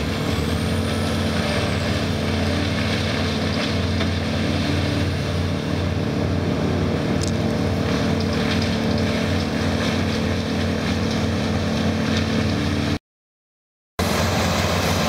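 Heavy machine engine running steadily at a constant speed, broken by about a second of silence near the end.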